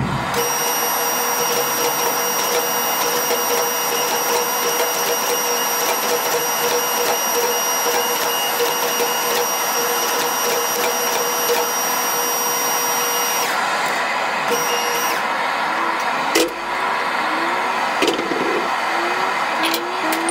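Hydraulic forging press running, its electric pump motor giving a steady whine with high hum tones while a red-hot steel billet is pressed between the dies. Two sharp knocks near the end.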